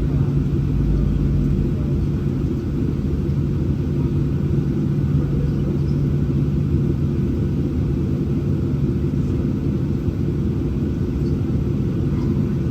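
Steady low rumble of a Boeing 737-800's CFM56 jet engines and airframe heard inside the passenger cabin, with a constant low hum running through it.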